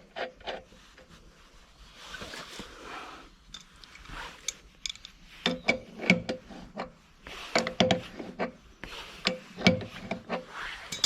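Spanner turning a nut on the threaded stud of a plough's depth stop: clusters of short clicks with some scraping, as the spanner is worked and repositioned in short strokes.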